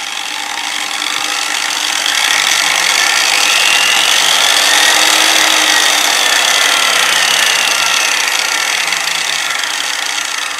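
Angle grinder motor running on a 220 V voltage speed controller, its whine rising in pitch and loudness over the first four or five seconds as the speed is brought up, then falling again as it is slowed back down.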